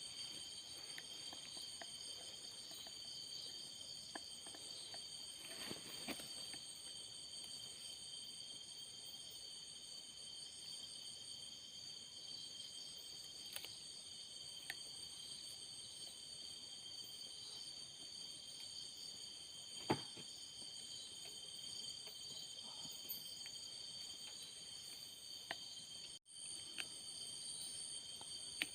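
Chorus of night insects such as crickets: several steady, high-pitched trills at different pitches running together. A few faint clicks are scattered through it, with a sharper tick about twenty seconds in, and the sound breaks off for an instant near the end.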